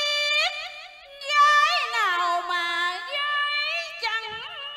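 A woman singing a high cải lương vocal line, with sliding, wavering held notes in two phrases and a short break about a second in.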